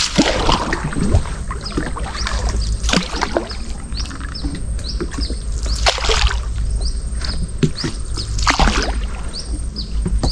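Water splashing and dripping around a small paddled boat, with a few louder splashes of paddle strokes, over a steady low hum. Short high chirps repeat about twice a second through the second half.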